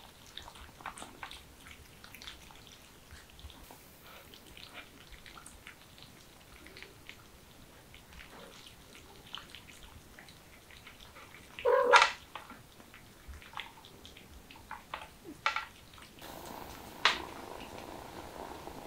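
Kittens and their mother cat eating from shallow trays, with soft chewing and licking clicks. A few short cat cries cut through, the loudest about midway.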